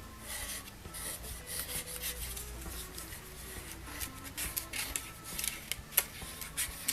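Adhesive being applied to paper card triangles in a string of short, uneven rubbing and scraping strokes, with a few sharper ticks near the end.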